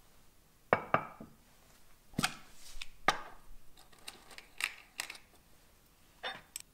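Ceramic and glass tableware being handled and set down on a hard tabletop: a series of separate knocks and clinks, some in quick pairs.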